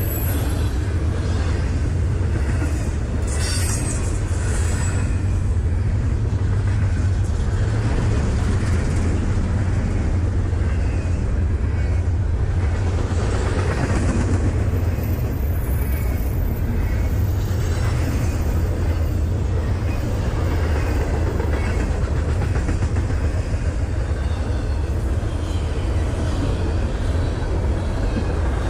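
Empty double-stack intermodal freight cars rolling past on steel rails: a steady heavy rumble with the clatter of wheels on the track.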